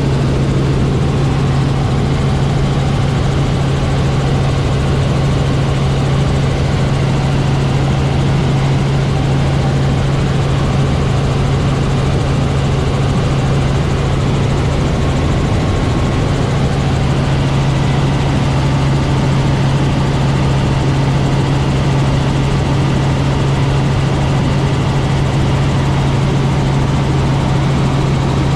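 Robinson R44 helicopter's piston engine and rotors running steadily: a constant low drone with an even rushing noise over it.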